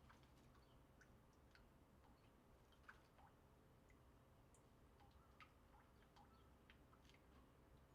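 Near silence: faint garden ambience with scattered soft ticks and short chip notes of small birds.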